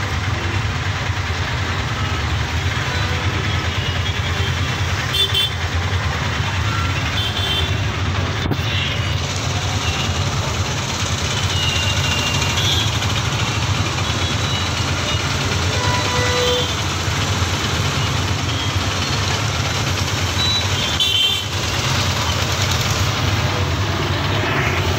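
Steady street traffic on a wet road: a constant low engine rumble and tyre and road noise, with short vehicle-horn toots several times throughout.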